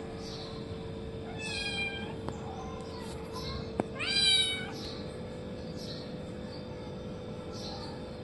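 Kitten meowing twice: a shorter meow about a second and a half in, then a louder, longer one around four seconds in. A sharp click comes just before the second meow, and a steady hum runs underneath.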